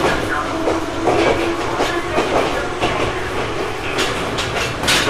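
On-board running sound of an Ohmi Railway 900 series electric train (motor car MoHa 901, a rebuilt Seibu 101 series) under way: a steady motor and gear hum over a rumble, with wheels clacking over rail joints.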